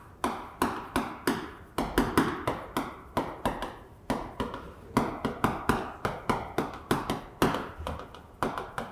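Chalk tapping and scratching on a chalkboard as a line of words is written: an uneven run of sharp taps, a few a second.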